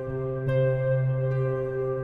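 Background instrumental music with long held notes, a new note coming in about half a second in.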